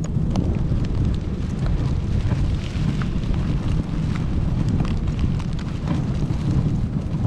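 A dog sled gliding over packed snow: a steady rumble of the runners and wind buffeting the camera, with occasional faint clicks and rattles from the sled.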